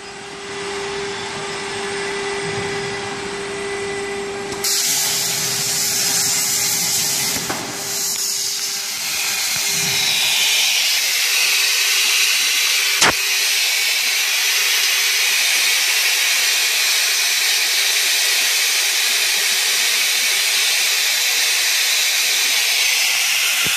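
Hypertherm 105A plasma cutting machine running: a steady, loud, high-pitched hiss of the plasma arc and its air stream, with a low hum under it in the first few seconds and one sharp click partway through.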